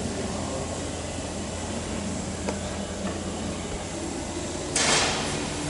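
Steady low hum of a large workshop hangar, with a short, loud burst of hissing about five seconds in.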